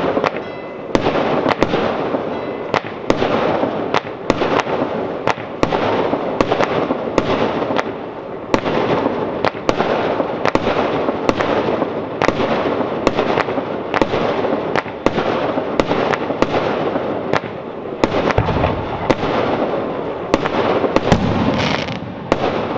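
Aerial fireworks display in full barrage: sharp bangs of shells bursting a few times a second over continuous crackling, with deeper booms near the end.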